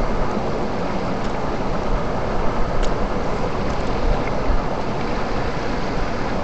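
Steady rushing noise with a deep, uneven low rumble, and a couple of faint clicks about a second and three seconds in.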